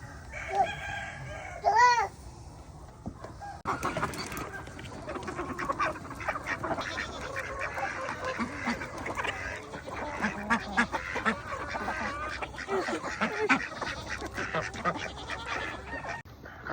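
Farm poultry flock calling: a mix of clucks, squawks and honk-like calls, with one short, loud call about two seconds in. It becomes a dense, busy chorus from about four seconds in.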